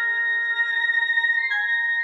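Instrumental introduction of a Hindi bhakti song to Durga: a slow melody of long held notes over sustained chords, with no singing.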